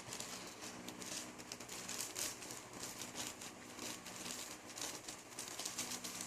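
Thin plastic crinkling and rustling as it is handled: a string of faint, irregular crackles.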